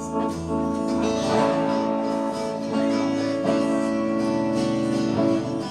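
Acoustic guitar strummed, a few chords ringing out in turn and dying away near the end.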